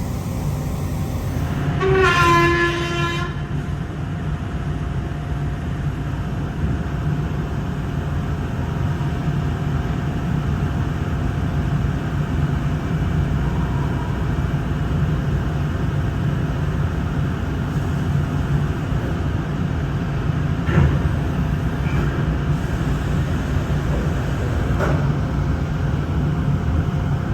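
Steady low hum of industrial machinery in a plant, with a short horn-like tone of several pitches about two seconds in and a few sharp knocks later on.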